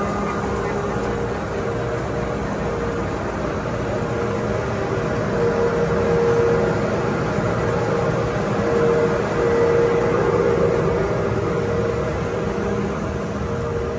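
Langston Saturn III flexo folder gluer running under power: a steady mechanical drone with a constant hum, swelling a little about halfway through and again later.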